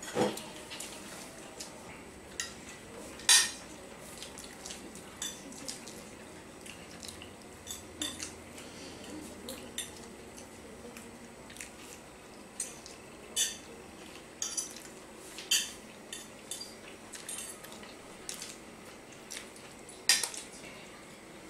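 Metal forks clinking and scraping against ceramic plates as people eat noodles, in short, irregular clicks, two of them louder than the rest.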